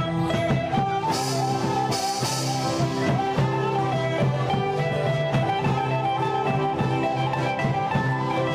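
Band music playing: held melody notes over plucked strings and a steady percussion beat.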